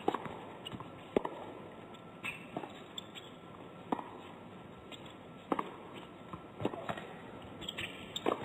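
Tennis rally: racquets striking the ball back and forth, a sharp pop roughly every one to one and a half seconds, with fainter ball bounces and shoe squeaks between, over a hushed indoor crowd.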